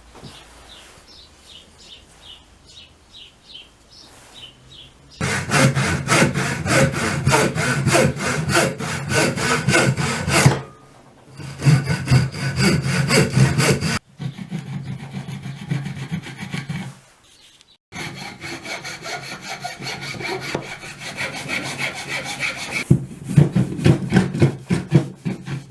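Hand saw cutting through a block of Douglas wood in quick, even back-and-forth strokes, heard in several runs broken by abrupt cuts.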